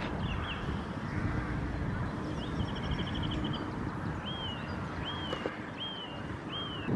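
Wind rumbling on the microphone, with bird calls over it: a short rapid trill about two and a half seconds in, then four evenly spaced calls that each rise and fall.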